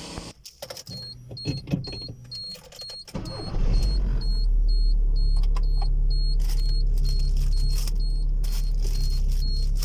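Inside a Volkswagen Fox: a few clicks and knocks, then a warning chime beeping about twice a second. About three seconds in, a steady low rumble of the car running sets in and stays.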